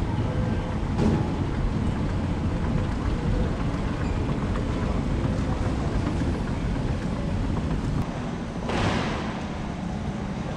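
Steady low rumble and hiss of a moving escalator and the large airport terminal hall around it. There is a short rushing hiss about nine seconds in.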